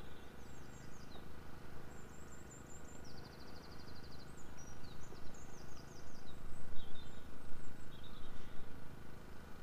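Small songbirds singing in short high chirping phrases, with one rapid trill about three seconds in, over a steady low rumble.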